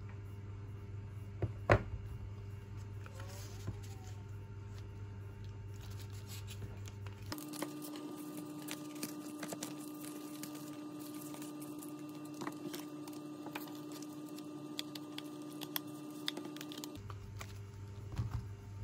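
Handling of an Apple Pencil's cardboard box and paper manuals: small taps, slides and paper rustles, with one sharp click about two seconds in. A steady low hum sits underneath.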